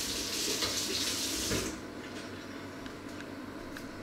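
Kitchen tap running water in a steady stream, shut off about one and a half seconds in, leaving quiet room tone with a few faint ticks.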